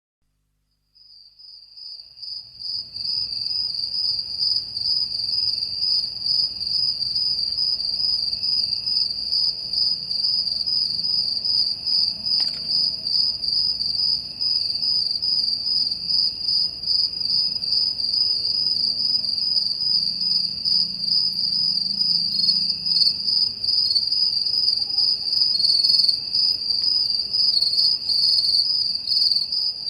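Crickets chirping in a steady, rapid high-pitched trill that fades in over the first few seconds.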